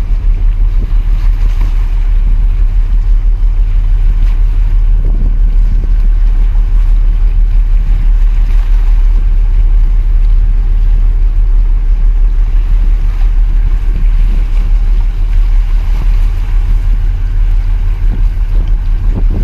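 A large container ship and its harbour tug moving slowly past close by: a loud, steady low rumble with water washing, heavily overlaid by wind buffeting the microphone.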